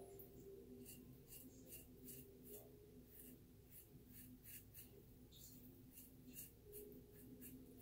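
Faint scratchy strokes of a RazoRock Blackhawk v2 razor cutting lathered stubble on the neck, about three short scrapes a second.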